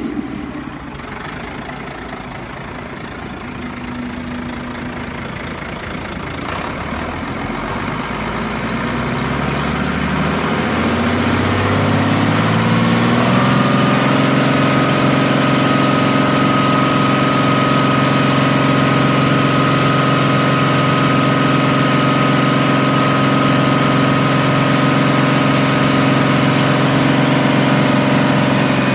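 Ford 7.8L diesel engine of a 1988 Ford F800 running at a low idle. Around the middle its speed rises smoothly over a few seconds and then holds steady at a higher speed, with a steady high whine over the engine note.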